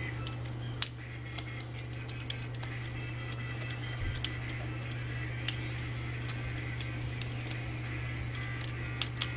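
Butterfly knife being flipped: its metal handles clack and click a handful of times, with the sharpest clicks about a second in and twice near the end, over a steady low hum.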